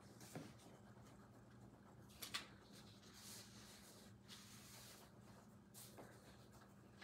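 Faint handling of a book and loose sheets of paper at a wooden lectern: soft paper rustles and a few light taps, the sharpest about two and a half seconds in, over a faint steady low hum.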